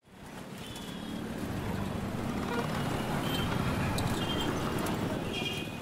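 City traffic ambience fading in: a steady rumble of road traffic, with a few short high-pitched tones over it.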